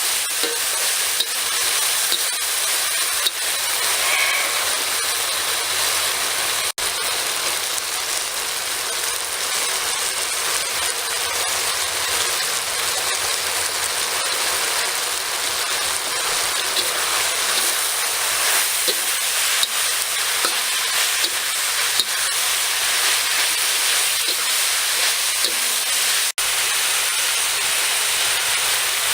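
Beef and vegetables sizzling steadily in a hot pan, with scattered small pops; the sizzle drops out for an instant twice.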